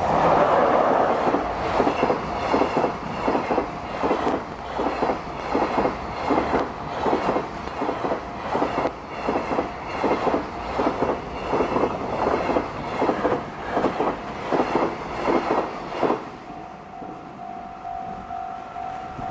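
A high-speed freight train's container wagons passing at speed, the wheels beating over the rail joints in a steady clickety-clack of about two knocks a second. The train sound stops a few seconds before the end, and the level crossing's ringing alarm tone comes back through.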